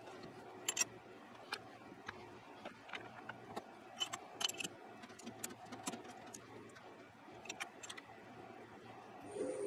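Scattered light metallic clicks and taps from a metal lathe being set up by hand, with the tailstock centre and tool post being adjusted around the chucked bar. Right at the end the lathe starts up with a rising hum and a high whine.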